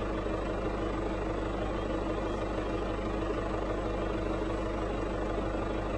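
A motor vehicle's engine running steadily, a low even drone with a constant hum.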